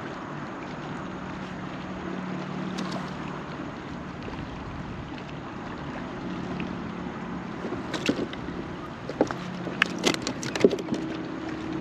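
Ambience from a kayak on open water: a steady wash of wind and water with a faint low hum that comes and goes. From about eight seconds in there is a cluster of sharp clicks and knocks.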